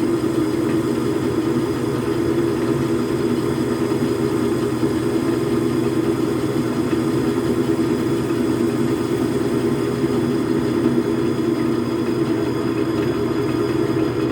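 Steady mechanical hum of running machinery, even and unbroken.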